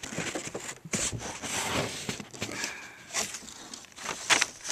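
Rustling and scraping noises with scattered short clicks.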